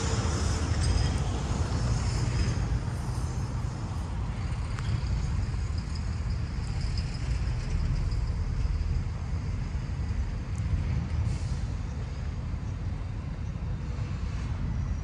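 Steady outdoor rumble, heaviest in the low end, with a faint hiss above it and no clear breaks or single events.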